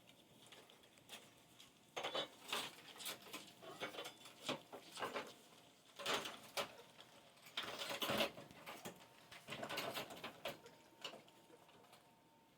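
A litter of five-week-old puppies licking and lapping at a shared feeding pan, with quick irregular clicks and scrapes as they clean up the last of the food.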